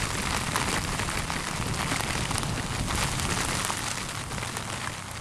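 Heavy rain pelting down on the helmet-mounted camera and its external microphone, a dense hiss full of sharp drop hits, with a low rumble underneath; it eases slightly near the end.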